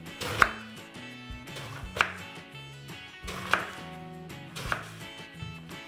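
Kitchen knife slicing through an eggplant into rounds and striking a wooden cutting board: four sharp chops, roughly one every second and a half, over soft background music.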